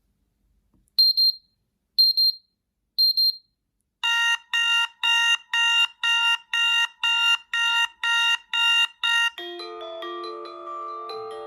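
HTC phone ringtone and alert tones played one after another: three high double beeps a second apart, then a run of about eleven chord-like beeps at about two a second, then a short chiming melody whose notes ring out and fade.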